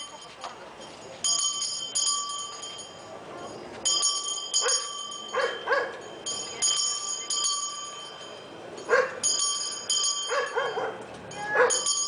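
Altar bells rung in short shakes about every two and a half seconds, marking the blessing with the monstrance at benediction. A dog barks several times in the second half.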